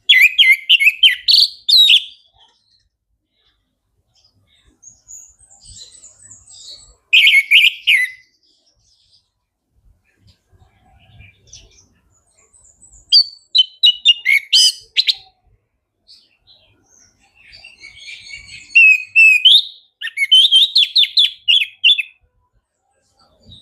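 Orange-headed thrush (anis merah) singing in loud bursts of rapid, varied notes, four phrases in all, with soft, high twittering in the gaps between them.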